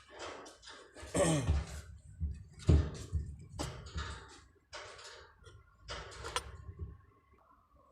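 Irregular knocks and clanks of tools on metal during work on a truck's fuel pump, over a low rumble.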